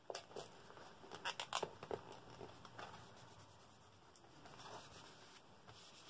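Paper collage pieces handled and pressed down onto a journal page by hand: a quick cluster of crackly paper rustles and clicks in the first two seconds, then fainter rubbing.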